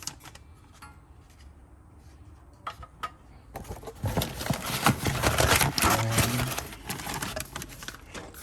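Packaging from a trailer brake controller kit being handled. A few light clicks come first, then about three and a half seconds in, a long stretch of loud crinkling and rustling.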